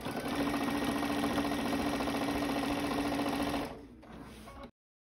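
Home sewing machine with a walking foot running steadily at speed, stitching through the layers of a quilt, then stopping about three and a half seconds in. Near the end the sound cuts off abruptly to silence.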